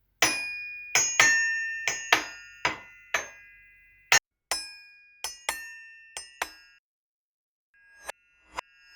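Glockenspiel notes struck one after another, about a dozen bright ringing notes, each dying away. After a short pause, two notes near the end swell up and cut off sharply.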